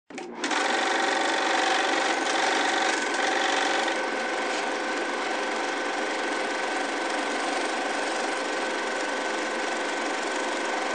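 Film projector running with a steady mechanical rattle and a thin steady tone, starting suddenly about half a second in.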